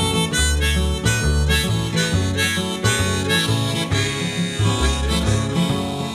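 Instrumental folk-blues passage: a harmonica plays the melody over strummed acoustic guitar and plucked upright double bass notes.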